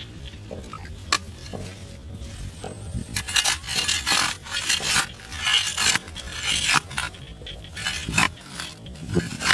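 Small hand spade scraping and digging into dry, crumbly soil, with a hand scooping out the loose earth. A run of irregular scraping strokes starts about three seconds in, after a quieter start with a single click.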